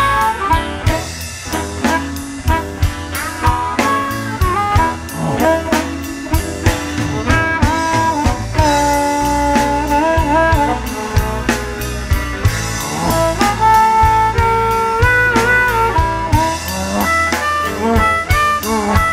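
Blues band playing an instrumental passage: a lead melody line with held and bent notes over drum kit and bass.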